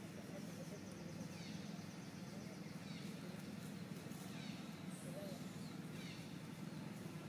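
Faint forest ambience: a steady low hum with a short, high, falling chirp repeating about every second and a half.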